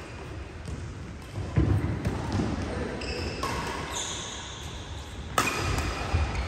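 Doubles badminton rally: racket strikes on the shuttlecock, including a sharp hit about five seconds in, with players' footsteps thudding and shoes squeaking on the synthetic court mat.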